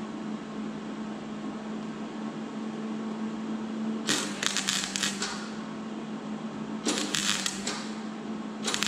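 MIG welder tack-welding thin muffler sheet steel: three short bursts of arc crackle, each about a second long, over a steady hum.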